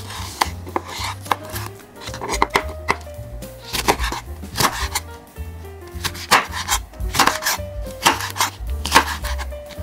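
Chef's knife chopping a green pepper on a wooden cutting board: sharp knocks of the blade striking the board, at an uneven pace of about one or two cuts a second, over background music.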